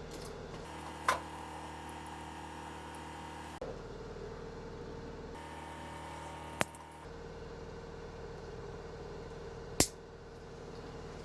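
A salvaged microwave oven part running on mains, giving a steady electrical hum of several tones that changes character every second or two. Three sharp clicks stand out, about one, six and a half, and ten seconds in.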